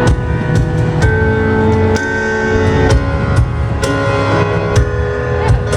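Loud live band music over a concert sound system at a sound check: sustained keyboard and guitar chords changing about once a second over a steady drum beat of about two strikes a second, with no vocals.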